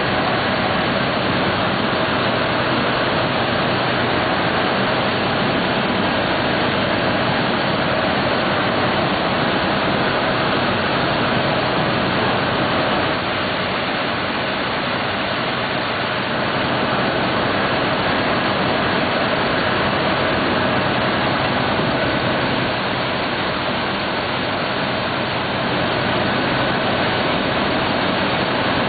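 Weeke BHX500 CNC machining center running: a steady rushing machine noise with faint steady tones, easing slightly twice.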